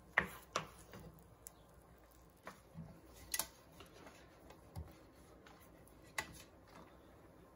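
Faint, irregular clicks and taps of kitchen utensils on cookware: a wooden spoon in a pan of sauced chicken, then oil being brushed onto a metal baking sheet.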